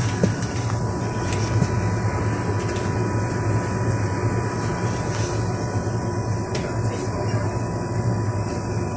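Steady low drone of a GAZelle Next minibus's Evotech four-cylinder engine, running on LPG, heard from inside the cabin, with a thin steady whine above it.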